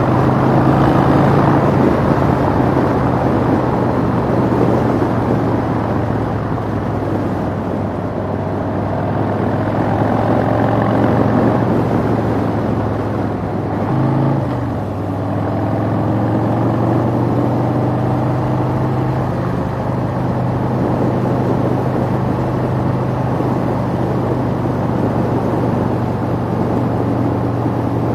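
Motorcycle engine pulling steadily at cruising speed, around 3,200 rpm, with wind and road noise, picked up by a helmet-mounted camera's microphone. The engine note shifts briefly about halfway through, then holds steady again.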